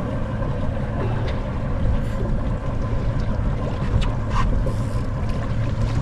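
Steady wind rumble on the microphone over water lapping at a fishing boat's hull, with a few faint clicks.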